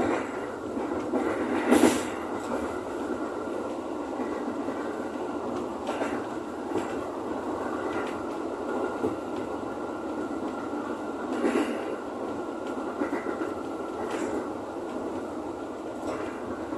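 Ex-JR 205 series electric commuter train running along the track, heard from the driver's cab: a steady rumble of wheels on rails, broken by a few sharp clacks over rail joints or points. The loudest clack comes about two seconds in.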